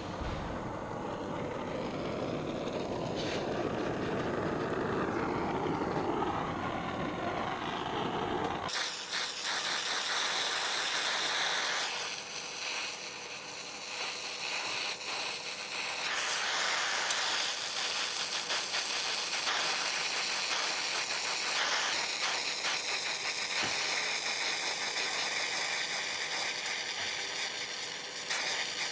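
Gas brazing torch flame burning steadily on a bronze cymbal during silver brazing. About nine seconds in the sound changes abruptly to a brighter hiss with fine crackling.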